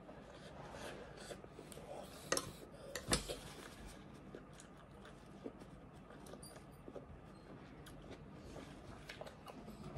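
Mostly quiet, with a few light clicks of cutlery against a dish, the two sharpest about two and a half and three seconds in.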